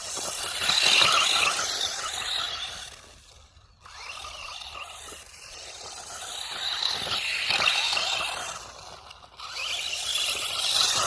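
Brushless FTX Outlaw RC car driving, a scraping, whirring run that swells and fades as it moves about, dropping away briefly about three and a half seconds in and again near the end.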